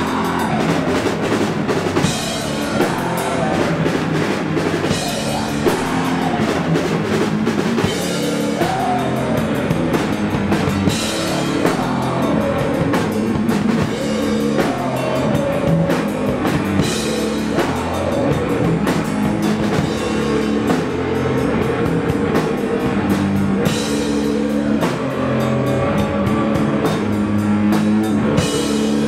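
Live doom metal band playing: electric guitar and bass over a drum kit with a steady beat and cymbals.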